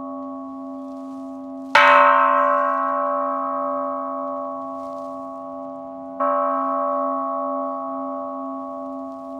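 A bell struck twice, about two seconds in and again about six seconds in, each strike ringing out slowly over a steady low hum.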